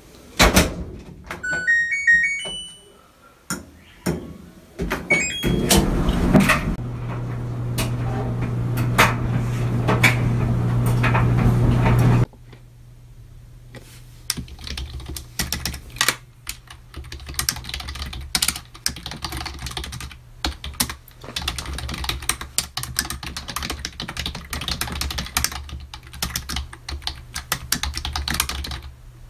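A front-loading laundry machine's door shuts with a thunk and its control panel plays short stepped beep tones as it is switched on and started. It then runs with a steady hum and a loud rush, which cuts off abruptly. After that comes fast typing on a computer keyboard, many rapid key clicks, over a low hum.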